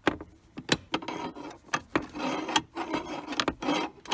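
Ratchet wrench with a T50 Torx bit loosening a bolt: stretches of rasping ratchet clicking on the back-strokes, with several sharp knocks of the tool in between.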